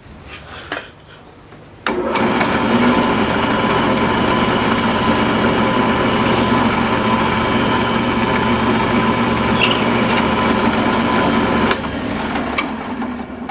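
A power tool's electric motor starts abruptly and runs at a steady high speed, then drops to a lower level near the end.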